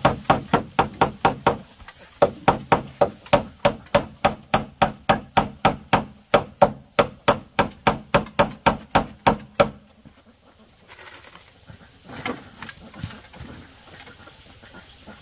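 Hammer striking a bamboo pole with quick, even blows, about four a second, with a short pause about two seconds in. The hammering stops just under ten seconds in, followed by a few quieter knocks near the end.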